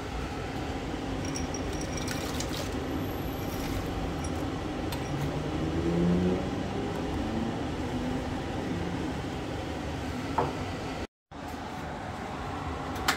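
Steady rushing noise from a stainless all-in-one brewing kettle holding hot wort for the hop stand, with hoses running into the wort, plus a few light clinks as pellet hops are tipped from a glass.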